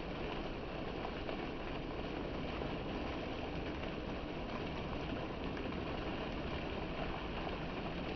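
Water fountain jet splashing steadily: a continuous, even rush of falling water.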